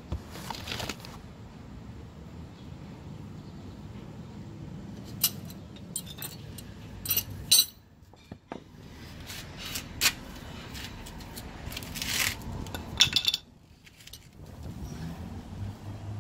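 Scattered metallic clinks and clicks of hand tools and bolts as a front brake caliper is bolted back over a new rotor, over a low steady hum.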